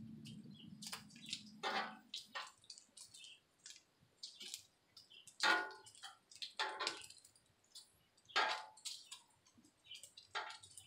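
Bacon sizzling and popping on a hot steel flat-top griddle, with metal tongs clacking and scraping on the griddle several times as the strips are moved and turned. A low hum stops about two seconds in.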